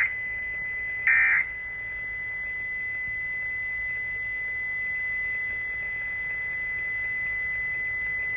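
Emergency Alert System end-of-message data bursts: the last two of three short, loud, buzzy digital bursts, one right at the start and one about a second in. A steady high-pitched tone carries on underneath them and on afterwards.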